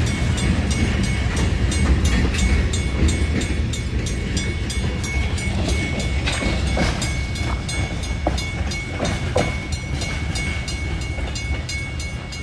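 Southwest Pennsylvania Railroad freight train rolling through a grade crossing: a low rumble of wheels on rail with a few sharp wheel clicks partway through. Over it the crossing bell rings steadily at about two strikes a second. The rumble eases toward the end as the train moves off.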